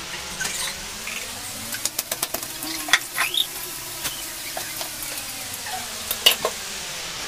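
Table sounds of a meal eaten by hand: a run of light clicks and clinks of ceramic plates and a spoon, with fingers picking at food on a plate, over a steady hiss. A short high squeak rises about three seconds in.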